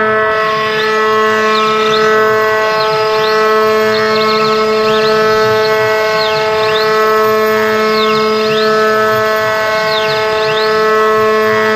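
CNC router running an adaptive clearing toolpath: the spindle whines at a steady pitch, while a higher whine swoops down and back up in pitch every second or two as the machine moves through the toolpath.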